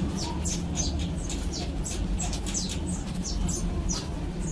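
Rapid series of short, high chirps from a small animal, several a second, each sliding downward, over a steady low hum.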